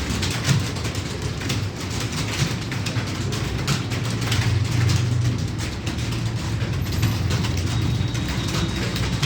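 Rapid, irregular clicking of computer keyboard keys being typed on, over a steady low hum.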